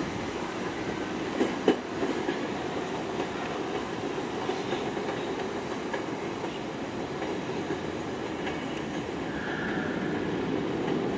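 New York City subway B train of R68-family cars approaching slowly, its wheels rumbling and clicking over rail joints and switches. Two sharp metallic clanks come about a second and a half in.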